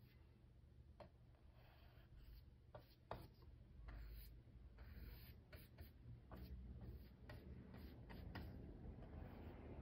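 Faint scratchy strokes of a bristle paintbrush brushing white paint onto a wooden board, with scattered light ticks.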